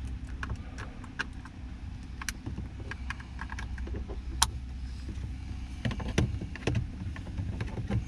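Scattered small plastic clicks and taps as a 2013 Nissan Altima's power-window switch panel is handled and pressed back into the door trim, with one sharper click about halfway through, over a low steady hum.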